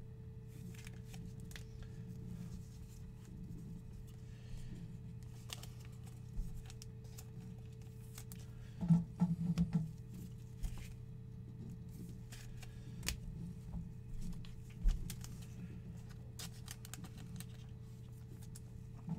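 Trading cards handled by gloved hands, sliding and scraping against each other, with soft clicks and a busier run of shuffling about nine seconds in. A steady low hum runs underneath.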